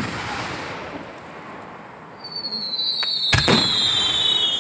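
Aerial fireworks going off: the fading echo of a loud burst, then a high whistle falling slowly in pitch from about two seconds in, cut across by two sharp bangs in quick succession about three and a half seconds in.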